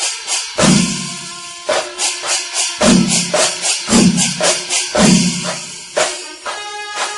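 Background music with a steady beat: a low drum hit about once a second, with quick, even percussion strokes in between.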